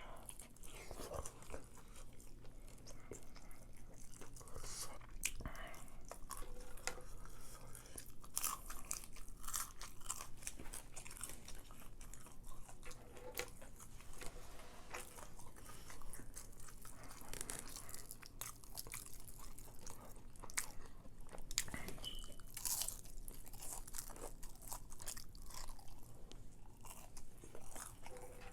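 Close-miked chewing and biting, with irregular crunching throughout.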